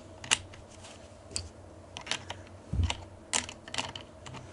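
Metallic clicks and rattles of rifle cartridges being handled in tight stripper clips, irregular sharp clicks with one dull thump a little before the three-second mark.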